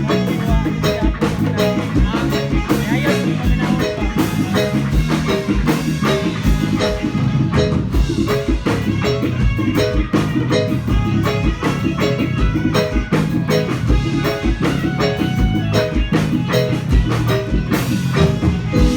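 Music with a steady drum beat and a mallet-percussion part of short, quickly repeated pitched notes.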